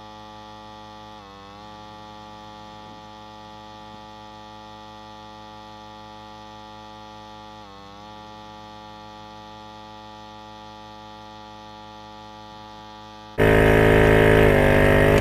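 EPAuto 12V portable air compressor running as it inflates a car tire, a steady motor hum whose pitch dips briefly twice. Near the end it suddenly becomes much louder.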